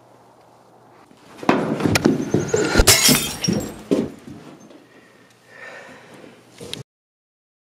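Glass breaking: a sudden crash about a second and a half in, then shattering and clattering pieces for about two seconds before dying away. The sound cuts out to dead silence near the end.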